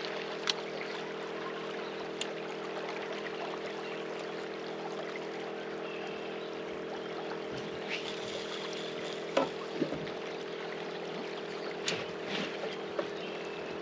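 A steady low hum under a hiss, broken by a few sharp clicks and knocks from fishing rods and reels being handled; about twelve seconds in comes a sharp knock as a rod is set into its metal rod holder.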